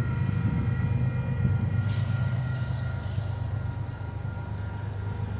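Low, steady rumble of an approaching Union Pacific train, with faint steady tones above it and a brief hiss about two seconds in.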